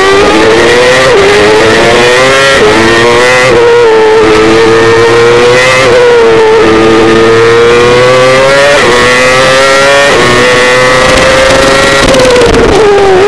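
Red Bull Formula One car's Renault V8 engine, heard loud from the car, running at moderate revs. The pitch rises and falls with several sudden drops as it shifts up, then falls away near the end as the car slows.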